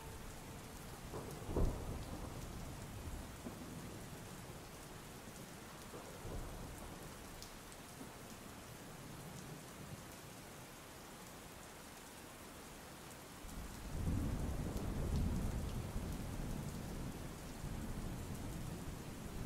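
Steady heavy rain with thunder: a sharp low crack about a second and a half in, then rolling thunder rumbling from about two-thirds of the way through.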